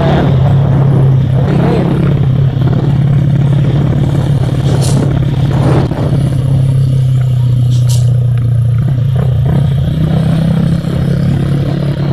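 Motorcycle engine running at a steady cruising speed, heard from on board with wind and road noise over the microphone; the engine note dips briefly about ten seconds in, then picks up again.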